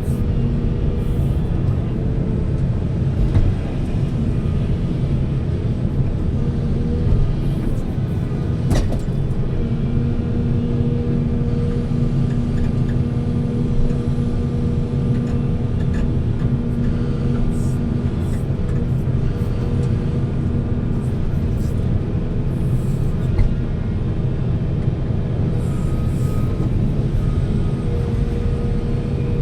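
Heavy diesel machinery running: a steady, loud low rumble, with a steady hum that comes in about ten seconds in and fades out about ten seconds later, and one sharp click a little before that.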